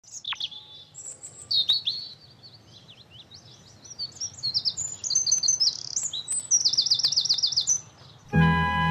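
A bird singing: a varied run of high chirps and whistles, ending in a fast trill of repeated down-slurred notes about seven seconds in. Just before the end, sustained music comes in abruptly and is louder than the birdsong.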